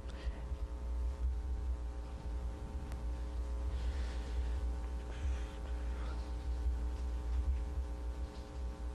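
Steady electrical hum in the recording, a low drone with a buzz of fixed higher overtones, with faint indistinct sounds in the middle.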